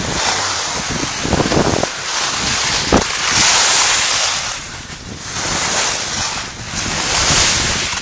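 Wind rushing over the microphone of a camera on a skier going downhill, mixed with the hiss of skis sliding on snow, swelling and fading several times. A short knock about three seconds in.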